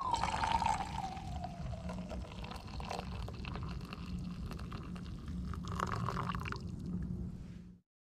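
Coffee pouring from a stovetop moka pot into a stainless steel camping mug, a thin stream splashing into the cup. It stops abruptly near the end.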